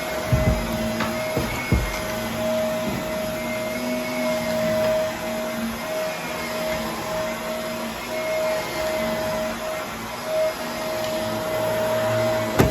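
Vacuum cleaner running steadily with a constant motor whine and airflow hiss, with a few brief low knocks, about half a second in, near two seconds and at the very end.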